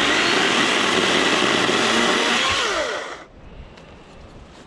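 Greenworks Digipro 40V brushless battery chainsaw running with its chain cutting a dead elm limb, then cutting off about three seconds in.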